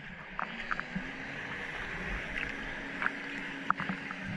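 Small boat under way: a steady rush of water and wind, a faint steady hum, and scattered short ticks and splashes.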